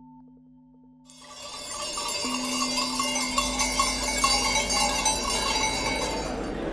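Many small livestock bells clanking and jingling together, the sound of a flock of belled sheep, starting about a second in after a faint steady ringing tone dies away.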